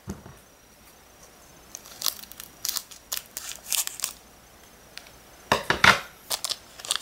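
Foil booster-pack wrapper crinkling and tearing in short bursts as it is opened by hand, the loudest near the end.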